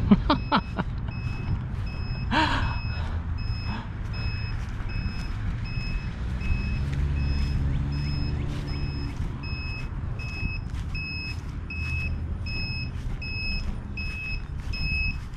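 Electronic alarm beeping steadily, about two short high beeps a second, over a low rumble of wind and movement.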